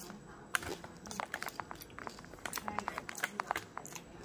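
A person chewing a mouthful of Chinese cabbage leaf wrapped around fish and vegetables close to the microphone: a quick run of small sharp mouth clicks and smacks, thickest in the middle.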